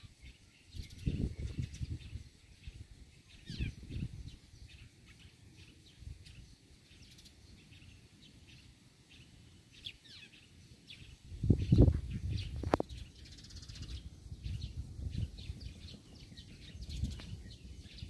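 Many small birds chirping faintly in the background, with irregular low rumbles on the microphone, the loudest a little past the middle with a sharp click.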